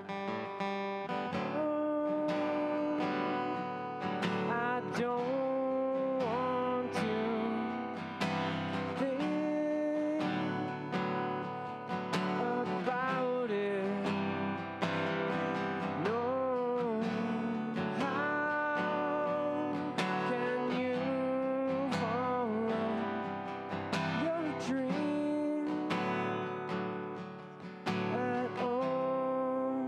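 A man singing live while strumming an acoustic guitar, amplified through a PA.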